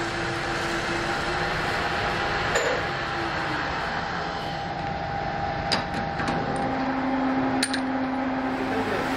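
Metal lathe running while turning a steel sprocket blank: a steady machine noise with a hum that drops to a lower pitch about six seconds in. It is broken by a few sharp metallic clicks, near the middle and towards the end.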